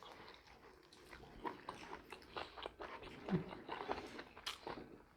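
Close-mic chewing of a pan-fried kothe momo: a run of small, irregular wet clicks and light crunches.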